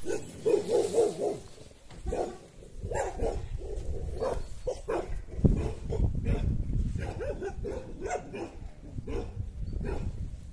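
Dog barking in short calls again and again, with a low rumble underneath.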